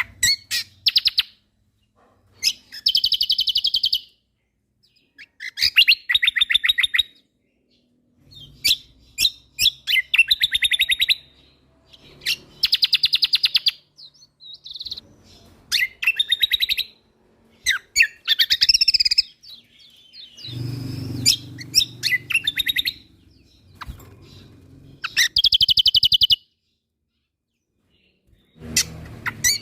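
A kecial kombok (cucak kombo) songbird singing in its full 'gacor' style. It gives bursts of rapid, evenly repeated trilling notes, each phrase about a second long, with short pauses between phrases.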